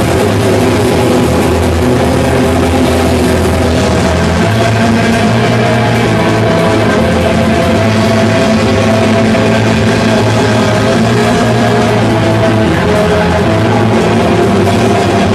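Loud rock music with distorted guitar, dense and without pauses.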